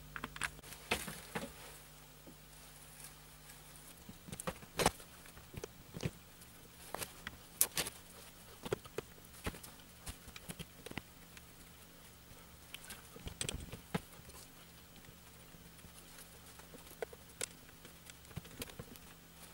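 Cloth rag rubbing and scattered small irregular clicks and taps as the ratchet pawl and drive shaft of an ebike mid-drive motor are wiped clean of old grease that has gone sticky.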